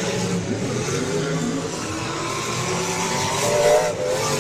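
Several demolition derby cars' engines running together, with one revving up about three and a half seconds in.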